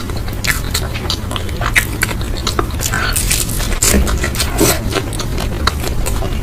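A person chewing and eating close to the microphone, with many short irregular mouth and food clicks over a steady low hum.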